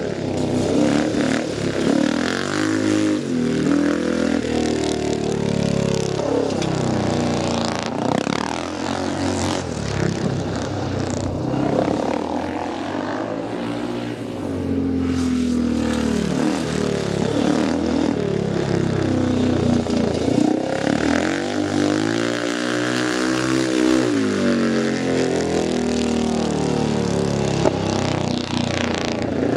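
Speedway motorcycle engine running hard around a dirt oval, its pitch rising and falling again and again as the bike laps and passes by.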